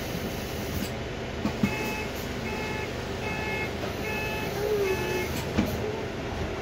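Door warning beeps on a Volvo B5LH hybrid double-decker bus: five short high beeps, evenly spaced under a second apart, over the bus's steady low running hum.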